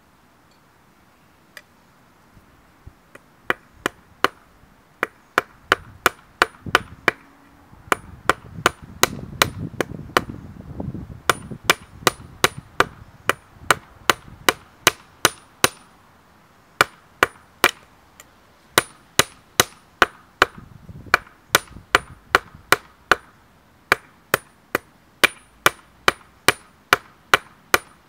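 Hand hammer striking a metal rod on a hammer-head anvil set in a wooden stump: a steady run of sharp metallic blows, about two or three a second, with a high ring on each. There is a short pause near the middle.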